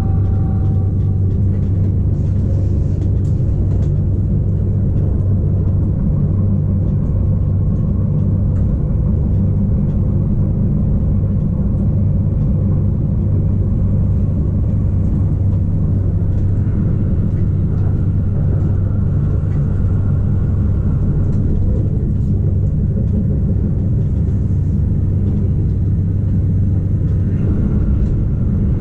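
Rhaetian Railway ABe 8/12 electric train running steadily along the track. It makes a continuous low rumble with a steady hum underneath.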